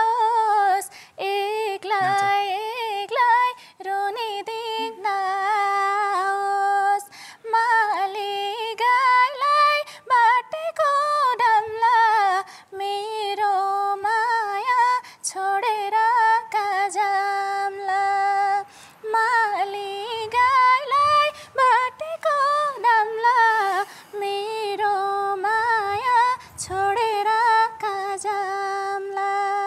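A young woman singing a Nepali folk song (lok geet) unaccompanied, in long held notes with wavering ornaments, phrase after phrase with short breaks for breath.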